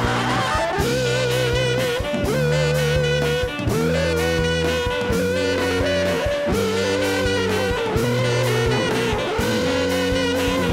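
Brass band of sousaphone, baritone saxophone, trombone and drum kit playing an instrumental passage: a horn melody with vibrato over held low chords in repeating phrases, with drums.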